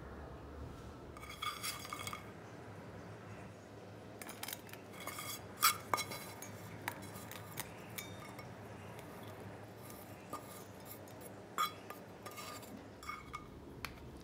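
Metal spoon clinking against a stainless steel lunch box as potato fry cubes are spooned in: about a dozen scattered, short ringing clinks, the loudest a little before halfway.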